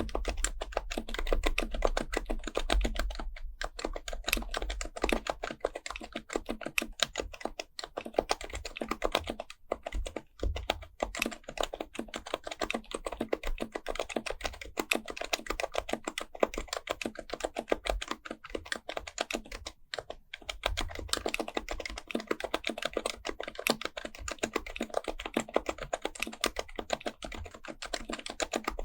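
Fast, continuous typing on an HHKB Pro Type-S keyboard, its silenced Topre capacitive key switches clicking in dense runs. There are brief pauses about 3.5, 9.5 and 20 seconds in.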